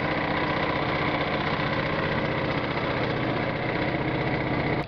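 Small boat engine running steadily at low speed with an even low throb; it cuts off abruptly right at the end.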